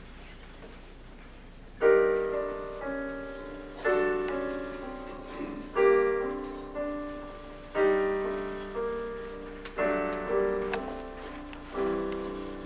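Piano playing the introduction to a spiritual: after about two seconds of room tone, full chords are struck roughly every two seconds, each dying away, with lighter single notes between them.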